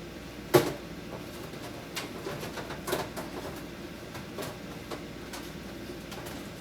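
Packages of turkey and ham being stacked onto a refrigerator shelf. One sharp knock about half a second in, then lighter clicks and taps as they are set in place.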